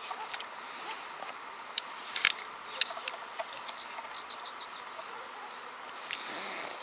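Sharp clicks and taps from handling float-fishing tackle (rod and line winder), the loudest about two seconds in. About four seconds in, a bird gives a short descending series of high notes.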